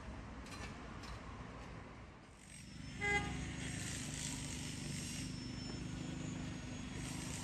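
Street traffic: a steady low rumble of passing vehicles, with a short horn toot about three seconds in.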